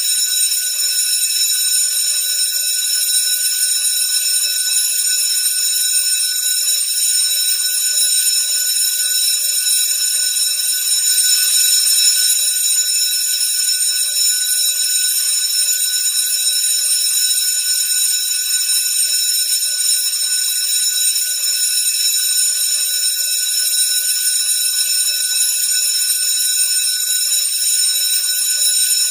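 School bell ringing continuously: a steady, unbroken high ring that stays at an even level throughout.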